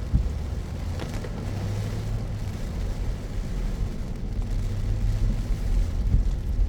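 Car driving on a rain-soaked road: a steady low rumble of tyres and engine with a light hiss of rain and spray, and a couple of short knocks near the start and about a second in.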